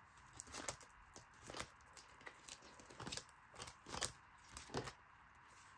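Clear plastic zip-pocket wallets being turned in a ring binder: faint, irregular crinkles and light clicks of handled plastic.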